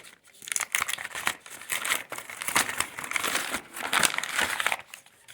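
Packaging being handled and torn open by hand: dense, irregular crinkling and rustling that stops about a second before the end.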